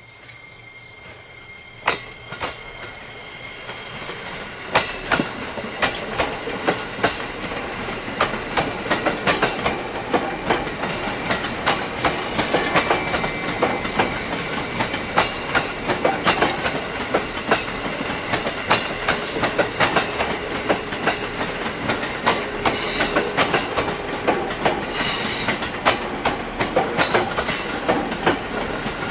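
JR East 205 series electric train rolling past, its wheels clicking over rail joints and points, growing louder over the first several seconds. Brief high wheel squeals come about twelve seconds in and again around twenty-five seconds.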